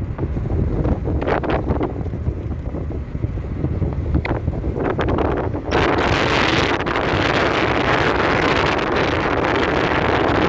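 Wind buffeting the microphone as a low rumble, with a few brief knocks. About halfway through, a louder, steady rushing hiss comes in abruptly.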